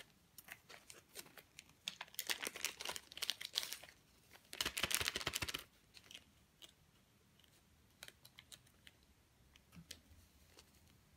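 Clear plastic bag crinkling as it is handled and opened: scattered crackles, a busier stretch about two to four seconds in, the loudest burst around five seconds in, then a few light crackles.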